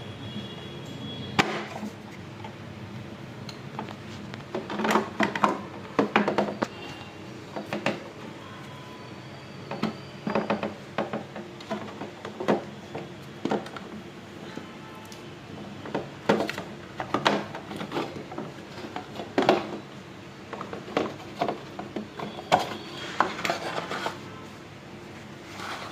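Irregular plastic knocks, clicks and rattles of a refrigerator's tub and shelves being handled and pulled out, over a steady low hum.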